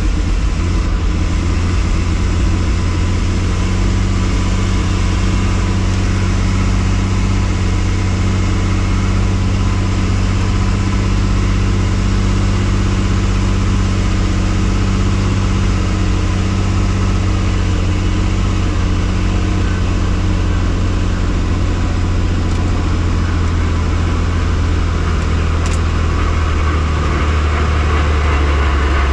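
Helicopter turbine engine and rotor running: a loud, steady low drone over a constant rushing noise, with a slight shift in the lowest tones near the end.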